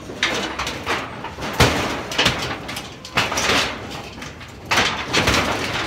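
Thin sheet-steel shed panels being wrenched and bent by hand, scraping and rattling in a series of loud irregular bursts, with a sharp bang about a second and a half in.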